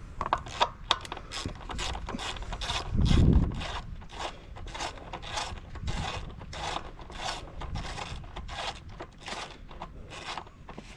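Ratchet wrench with an 8 mm socket ratcheting out a bolt that holds a plastic engine cover, in quick repeated strokes, about three a second. A dull low thud sounds about three seconds in.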